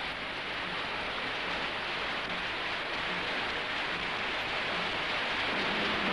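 Steady rushing of whitewater in river rapids, with music fading in near the end.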